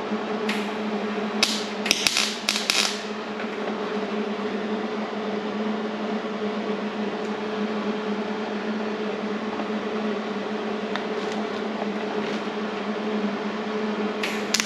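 A machine running with a steady hum, with brief harsh hissing bursts about two seconds in and again near the end.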